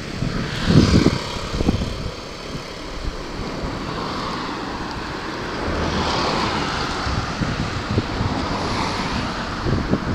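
Wind buffeting the microphone over the steady rushing noise of a passing vehicle, which swells about six seconds in.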